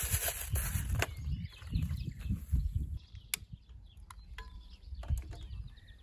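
Plastic bag crinkling for about the first second, then small birds chirping over a low wind rumble on the microphone, with a few sharp clicks.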